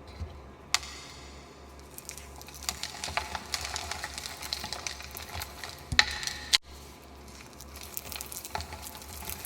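Dried gym chalk reforms being crushed and crumbled: irregular crisp crunches and crackles, with a sharp snap under a second in and a louder crunch about six seconds in.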